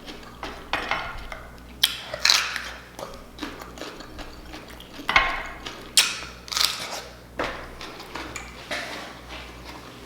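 Snow crab leg shells cracking and snapping under the hands, a string of sharp cracks with handling noise between them, loudest around 2, 5 and 6 seconds in.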